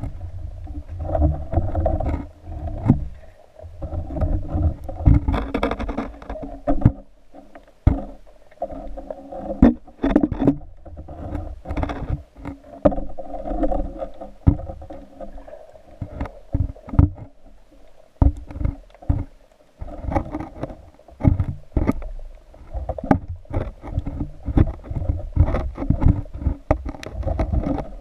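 Water sloshing and slapping around a camera housing mounted on a speargun held just under the sea surface, with a low rumble and many irregular knocks and clicks as the gun moves in the water.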